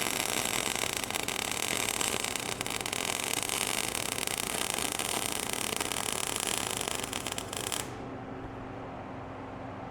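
MIG welding arc crackling steadily as a tooth is welded onto a steel excavator bucket, stopping abruptly about eight seconds in; a steady low hum carries on underneath.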